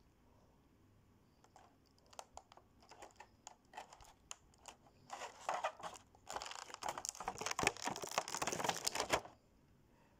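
Clear plastic blister-pack tray crinkling and crackling as it is handled: scattered crackles at first, building to dense crinkling for about four seconds, then stopping suddenly.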